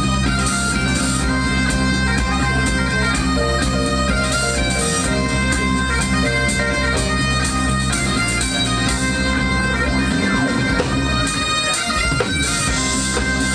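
Bagpipe music: pipes playing a melody over steady drones, with the low drone notes dropping out briefly near the end.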